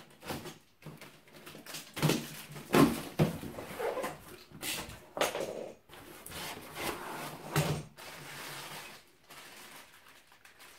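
Packed small parts of an exercise machine being rummaged through and handled: rustling packaging and foam with irregular knocks and clatter of parts, loudest about two to three seconds in.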